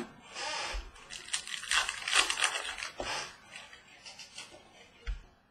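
A trading card pack's foil wrapper crinkling and being torn open, with cards shuffled in the hands; a short dull thump about five seconds in.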